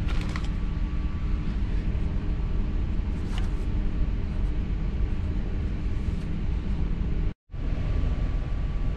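Running noise inside a V set intercity electric train carriage in motion: a steady low rumble. A couple of brief scuffs come near the start and about three seconds in, and the sound cuts out for an instant about seven seconds in.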